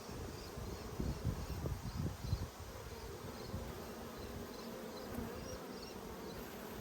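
Honeybees buzzing around an opened hive in a steady hum, with a few low thuds in the first couple of seconds.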